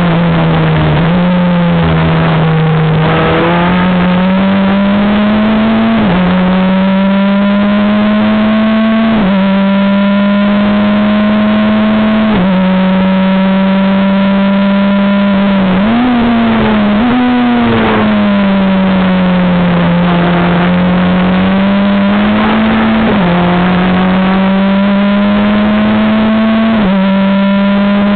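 Super FJ formula car's 1.5-litre Honda four-cylinder engine heard on board under hard acceleration. Its pitch climbs through each gear and drops at each upshift, every three seconds or so. Midway it gives two quick throttle blips on downshifts, its pitch falls as the car slows for a corner, then it pulls up through the gears again.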